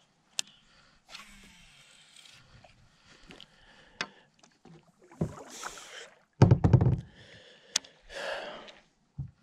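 Handling noises in a plastic kayak on the water: a few sharp clicks and knocks, short swishing water sounds, and one loud, deep thump about six and a half seconds in.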